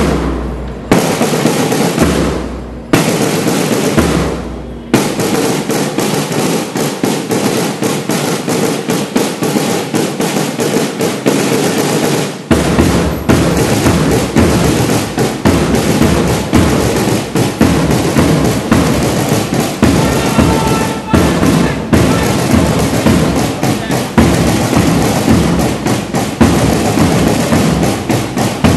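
Marching drums, a bass drum with a side drum, beating for students marching in. A few loud single beats come first, then about five seconds in the drumming turns into continuous rapid beating.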